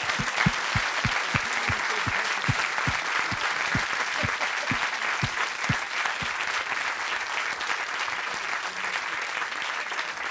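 Audience applauding. One pair of hands near the microphone claps a few times a second, slows and stops about six seconds in, and the applause eases off slightly toward the end.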